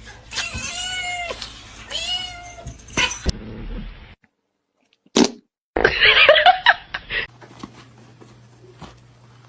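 Domestic cat meowing: two drawn-out calls, each rising then falling in pitch, in the first three seconds. After a short silence comes a louder, rougher call with a wavering pitch about six seconds in.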